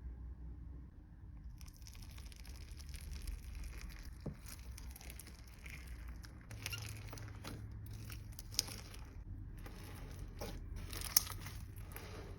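Slime being squeezed and handled, giving a crinkly crackling with many small pops that starts about a second and a half in, plus two sharper clicks in the second half.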